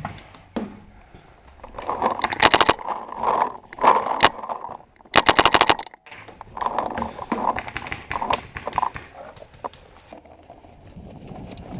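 Paintball markers firing in rapid strings of shots, the loudest a fast volley about five seconds in, with another quick string about two and a half seconds in and scattered single shots between.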